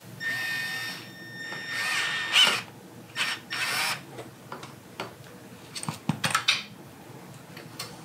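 Milwaukee M12 cordless drill-driver running in three short bursts as it drives a fastener into a metal chair frame. A few light clicks and taps follow about six seconds in.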